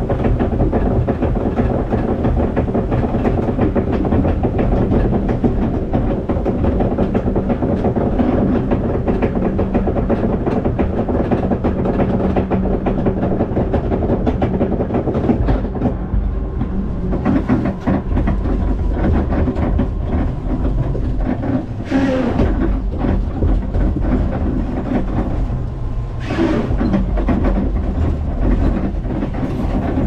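Log flume boat riding up its lift ramp, the lift mechanism rattling and clattering steadily under the hull. About halfway through the clatter thins out, broken by a few brief louder bursts.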